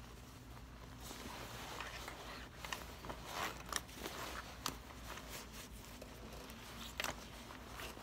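Leather rider jacket being handled and pulled right side out through the lining: the stiff leather and lining rustle and crinkle, with several sharp clicks. A low steady hum runs underneath.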